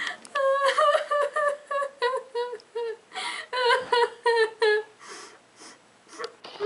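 A girl's voice crying in a string of short, high wailing sobs over her broken leg, acted for comedy. The sobs stop about five seconds in, leaving only faint breaths.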